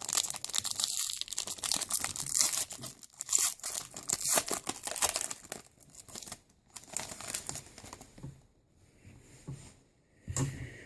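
Trading card pack wrapper being torn open and crinkled by hand, dense crackling for the first several seconds, then sparser rustles near the end.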